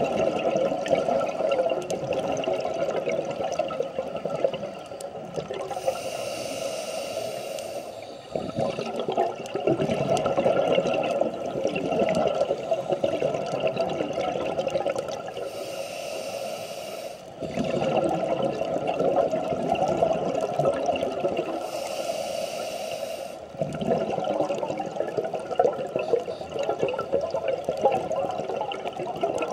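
Scuba diver breathing through a regulator underwater, muffled by the camera's underwater housing: long stretches of bubbling exhalation broken three times by a hissing inhale of about two seconds.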